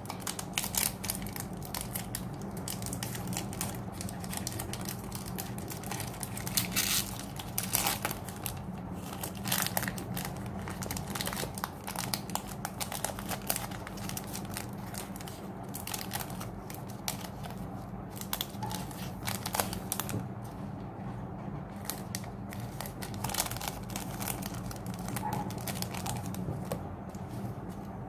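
Foil wrapper of a Pokémon trading card booster pack crinkling and crackling irregularly as it is cut open and the cards are pulled out, over a steady low hum.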